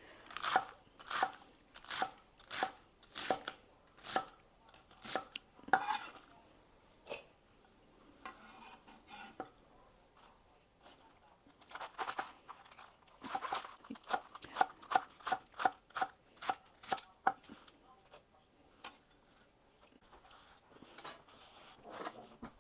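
Knife chopping romaine lettuce on a cutting board, quick even strokes about two a second. The chopping stops for a few seconds after about six seconds, with softer rustling of the lettuce, then starts again.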